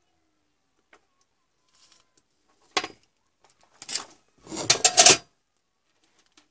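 Three short bursts of rattling and scraping as hand tools are moved and put down on the workbench, the last one, about five seconds in, the loudest and longest.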